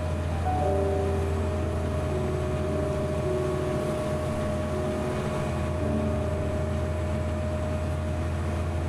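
Steady low drone of a boat's engine running under way, with long held tones above it that shift pitch now and then.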